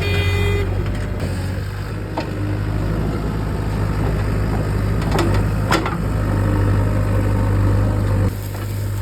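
JCB 3DX backhoe loader's diesel engine running steadily, with two sharp knocks about five and a half seconds in and an abrupt drop in level near the end.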